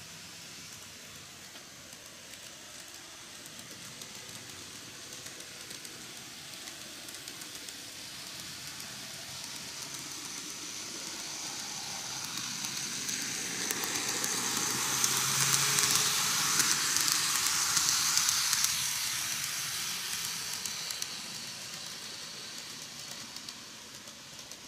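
N gauge model train, Greenmax's Meitetsu EL120 electric locomotive model, running on curved model track. Its wheels rattle on the rails and its motor gives a high thin whine, growing louder as the train approaches, loudest around 15 to 18 seconds in, then fading as it passes.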